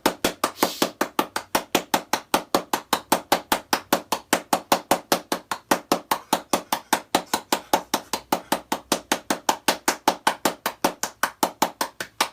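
Rapid, even knocking: sharp strikes at about five a second, kept up without a break.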